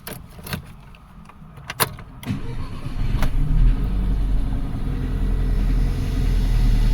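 A few sharp clicks, then the Audi engine cranks briefly and catches about two and a half seconds in, settling into a steady run. This is the first start after the engine overhaul, with the timing now set right, and it runs with a slight misfire.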